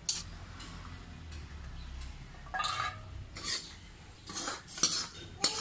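Metal spoon scraping and knocking against a wok as fried onion and chilli are scraped out into a steel bowl: a sharp clink at the start, then several short scrapes from about halfway on.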